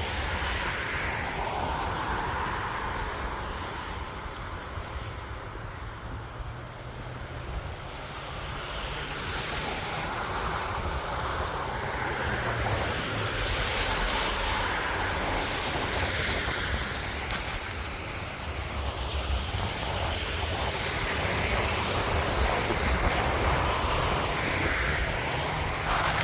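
Blizzard wind rumbling on the microphone under a hiss of road traffic that swells and fades several times as vehicles pass.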